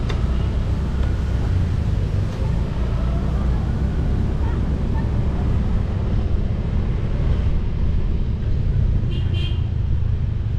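Wind buffeting the microphone over the steady rumble of a vehicle moving along a road. About nine seconds in there is a brief high-pitched pulsed beeping.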